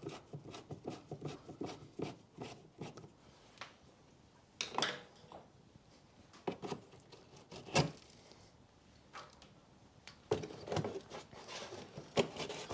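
Hand work on plastic wheel arch liner fixings: scattered light clicks and taps, with sharper knocks about five and eight seconds in, then scraping and rustling near the end.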